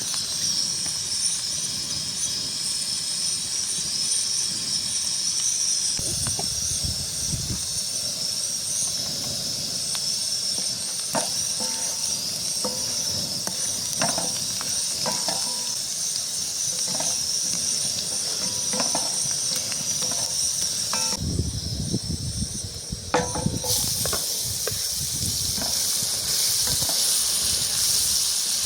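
Food sizzling in a hot pan, a steady high hiss with a few light knocks now and then. The sizzle cuts out for a couple of seconds about three quarters of the way through, then returns.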